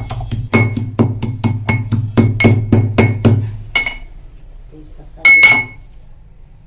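Pestle pounding whole spices (ginger, cardamom, black pepper, cloves, cinnamon) in a mortar: rapid, even strikes, about four to five a second, each with a short ringing clink. The pounding stops about four seconds in, and a single louder clink follows a second later.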